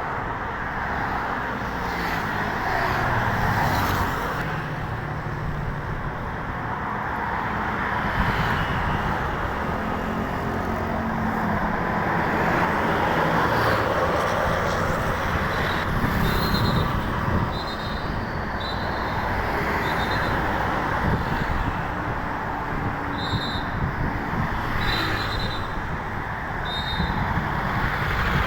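Road traffic with vehicle engines, including a low diesel hum, running and passing steadily. From about halfway on, short high-pitched beeps or whistle blasts repeat every one to two seconds.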